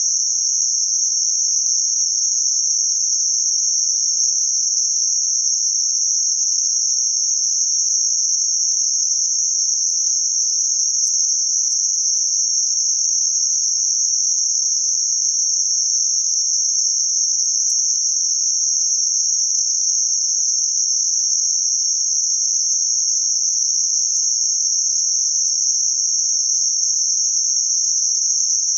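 Synthetic narrow-band noise centred around 6051 Hz: a steady, high-pitched hiss with no change in level or pitch.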